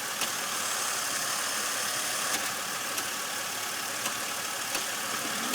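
A 2002 Chevrolet Impala's engine idling steadily, with a few faint clicks, while the gear selector is moved to low; the car has a failed transmission and will not move in gear.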